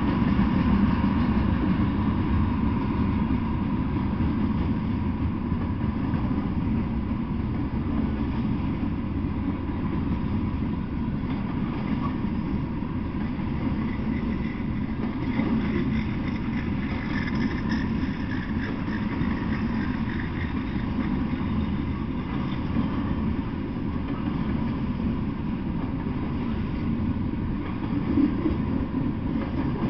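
Freight train of tank cars and covered hopper cars rolling past, a steady low noise of steel wheels on the rails. A faint higher note joins for a few seconds around the middle.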